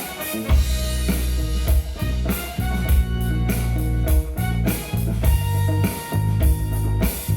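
Instrumental rock music with a steady drum beat, heavy bass and held guitar notes, without singing.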